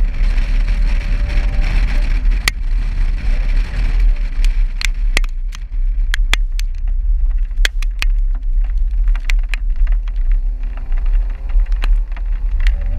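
A 2015 Subaru WRX driving on a wet road, a steady low rumble, heard from a camera on the car's rear. Irregular sharp clicks of raindrops strike the camera throughout.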